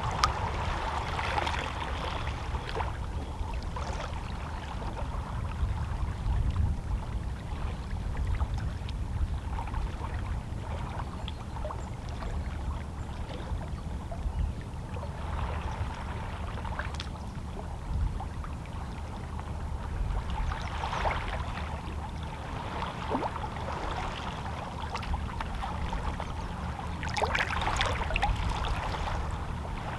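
Small, calm sea waves lapping and sloshing against shoreline rocks, coming in soft irregular swells every few seconds over a steady low rumble.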